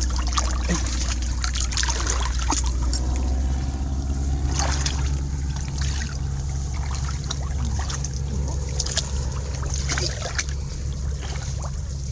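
Shallow creek water sloshing and trickling, with scattered small splashes, as people wading in it grope through the mud by hand for mussels. A steady low hum runs underneath.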